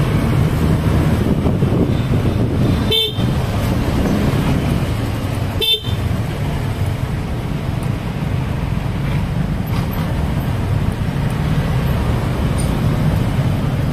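Steady low engine and road rumble of a motorcycle riding in slow traffic close behind a jeepney, with two short horn beeps about three seconds and six seconds in.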